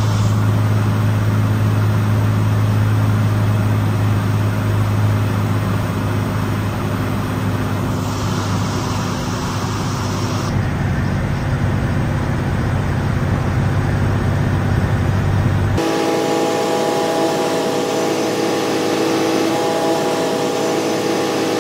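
Cirrus SR22's six-cylinder piston engine and propeller running steadily, heard from the cockpit as a strong, even low hum. About two-thirds of the way through, the sound abruptly switches to a higher-pitched, sped-up version of the engine hum.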